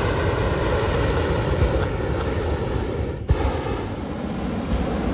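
Hot air balloon's propane burner firing in a long, loud rushing blast, with a brief break a little past three seconds in.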